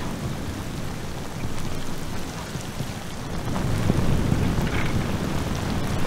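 Steady rain falling on wet paving, with a low rumble that swells about halfway through.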